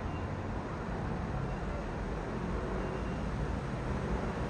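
Jet rumble from a British Airways Boeing 777-200ER's twin Rolls-Royce Trent 800-series engines passing at height, a steady low roar slowly growing louder, with wind on the microphone.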